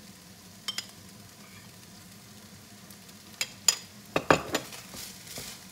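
Minced meat frying in a pan with a faint, steady sizzle that grows a little stronger after about five seconds. A few sharp clinks of a spoon against a ceramic bowl come once near the start and in a quick cluster about three and a half to four and a half seconds in, the loudest sounds here.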